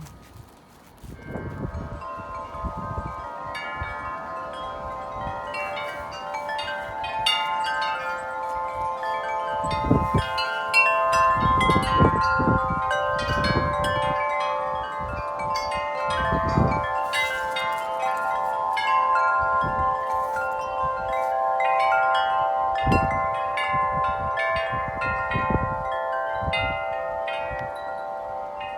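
Large tubular wind chime ringing continuously in strong wind, many tubes struck again and again so their tones overlap. Gusts of wind rumble on the microphone throughout.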